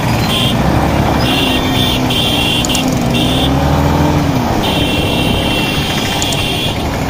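Yamaha MT15's 155cc single-cylinder engine running at low speed in traffic. Its note wavers and then drops about four seconds in as the throttle eases, over steady traffic noise with a high hiss that comes and goes.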